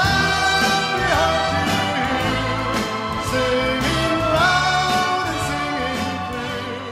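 Music: a song with a sung vocal line holding and sliding between notes over an accompaniment, easing off a little near the end.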